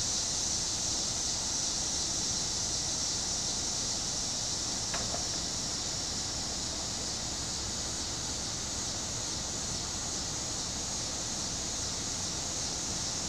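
Steady outdoor background hiss, strongest in a high-pitched band, with a faint brief sound about five seconds in.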